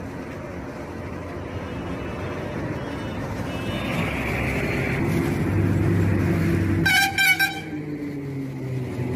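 A motor vehicle's engine growing steadily louder as it approaches, sounding two short horn toots in quick succession about seven seconds in, then falling in pitch.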